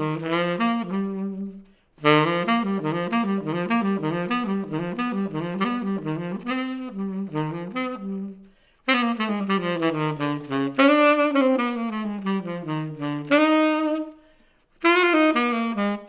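Chateau CTS-50V tenor saxophone played solo and unaccompanied, raw with no effects or EQ added. It plays quick runs of notes in phrases broken by short breath pauses about two seconds in, around eight and a half seconds in, and near fourteen seconds in.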